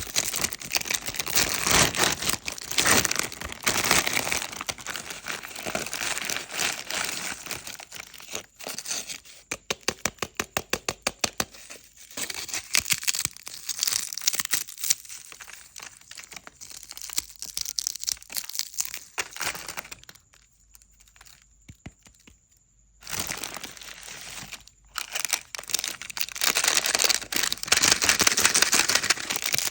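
Plastic and foil snack wrappers crinkling and being torn open, in close, dense crackles. About a third of the way through there is a quick run of evenly spaced clicks, and about two-thirds through a short near-quiet pause before the crinkling resumes, loudest near the end.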